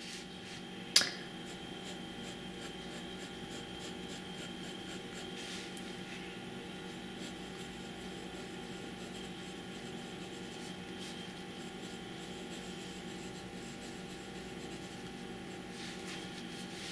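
Fountain pen with a broad Schmidt nib writing on paper: faint scratching strokes as lines and words are written. A single sharp click about a second in.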